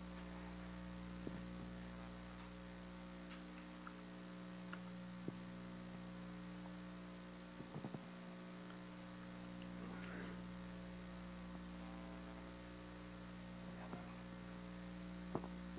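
Steady electrical mains hum, with a few faint clicks from computer keys as a search term is deleted and retyped, including a short run of clicks about halfway through.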